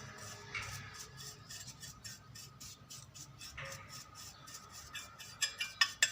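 Small metallic clicks and taps from handling the parts of an opened electric iron, with a quick cluster of sharp clicks near the end.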